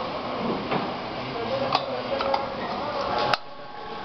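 Automatic pipe bending machine working a steel tube: a few sharp metallic clicks and knocks from its tooling over a steady machine hum, the loudest click about three seconds in.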